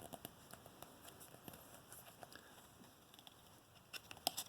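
Faint handling of trading cards: soft taps and slides as the cards in a pack are flipped through one by one, with a few sharper clicks near the end.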